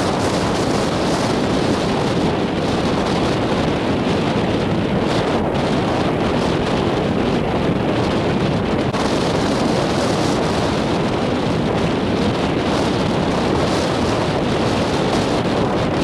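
Strong high wind blowing hard across the microphone: a loud, steady rush of wind noise.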